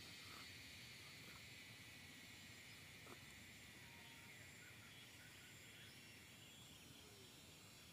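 Near silence, with a faint steady high-pitched insect drone and one faint click about three seconds in.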